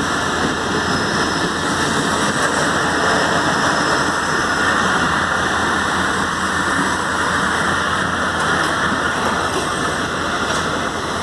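Passenger train coaches rolling past close by at speed: a loud, steady noise of steel wheels running on the rails.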